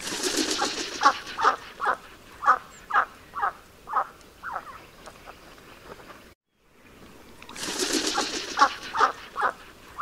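Mallard quacking: a run of about eight short quacks, roughly two a second and fading as they go, over a rushing noise at the start. After a brief dropout just past six seconds, the rushing noise and a few more quacks come again.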